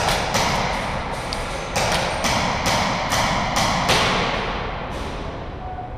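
Airsoft guns firing during a close-quarters game: about a dozen sharp cracks at irregular intervals, each ringing briefly.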